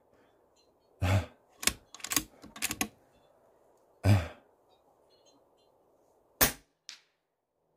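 Moderated .25 calibre PCP air rifle (Artemis M16A): a few clicks and clacks in the first half, then a single sharp shot about two thirds of the way in, followed half a second later by a much fainter tick.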